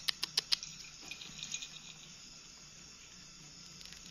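A quick run of five or six sharp clicks in the first half-second, then a few fainter ticks, over a steady faint hum.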